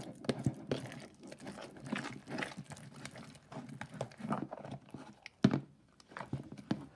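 Slime being kneaded and stretched by hand: a run of irregular sticky squelches and small popping clicks, with one sharper pop about five and a half seconds in. The slime is still under-activated and sticky.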